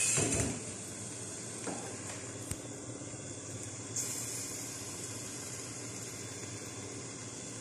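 Chicken, potatoes and carrots sizzling in a covered wok on a gas burner, a steady hiss. A short louder noise at the very start and a few faint clicks; the sizzle turns a little brighter about four seconds in.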